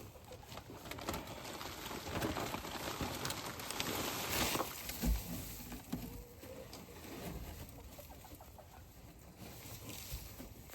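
Loose straw rustling and crackling as it is pushed into a small wooden turkey house, busier in the first half and quieter later, with soft clucking calls from the poultry.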